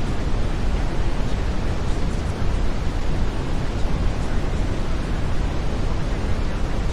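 Steady brown noise: an even, unbroken rushing hiss weighted to the low end, with no changes or events.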